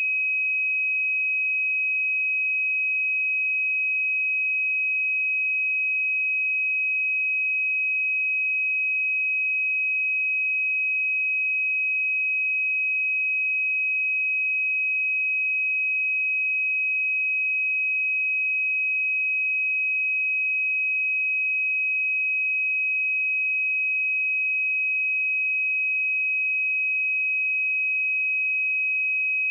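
A pure 2538 Hz sine-wave test tone, held at one steady pitch and level without a break.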